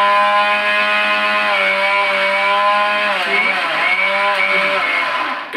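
Orpat 1200-watt mixer grinder's motor running, its blade grinding coconut in the stainless steel jar: a loud, steady whine whose pitch sags briefly a little past halfway and then picks up again.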